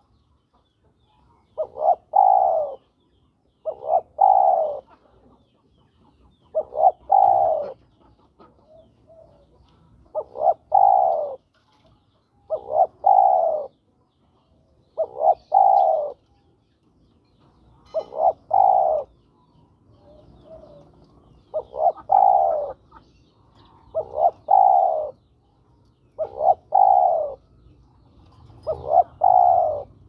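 Spotted dove (tekukur) cooing its advertising call to draw a female: a phrase of two short notes and a longer coo, repeated eleven times about every two to three seconds.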